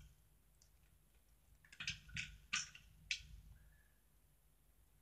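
A quick run of five or six light clicks and taps, like plastic toys being handled, about two seconds in, with near silence either side.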